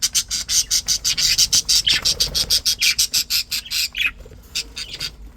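Budgies chattering in a rapid stream of high chirps and squawks that thins to a few scattered calls after about three and a half seconds.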